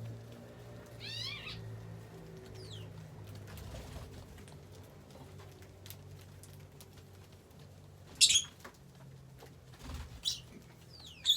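Lovebirds calling: a quick trill of short falling chirps about a second in, then loud, harsh, shrill squawks near the end, over a steady low hum.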